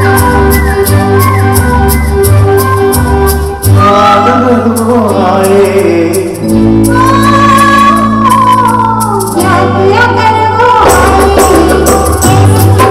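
Live Hindi film song performed by a band with dholak, guitars and keyboard, with singing. A rhythmic drum-backed passage breaks off briefly about three and a half seconds in, gives way to long held notes in the middle, and the beat comes back near the end.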